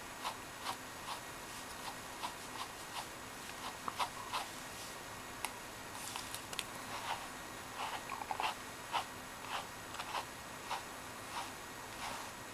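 A grooming brush raking through a dog's thick undercoat in short repeated strokes, about one or two a second, with a few sharper clicks about six seconds in.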